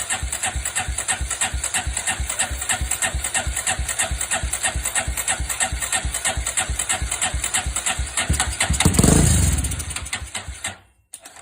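Honda FTR223's 223 cc single-cylinder four-stroke engine idling through a Supertrapp muffler with steady, even exhaust pulses. Near the end it is revved once, then shut off, followed by a small click.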